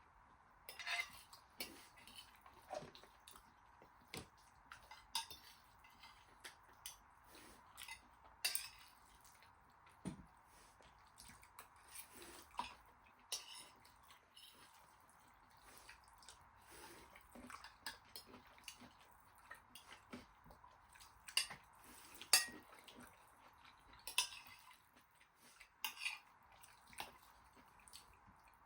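Cutlery clinking and scraping against plates as food is eaten, in light, irregular clicks a second or two apart.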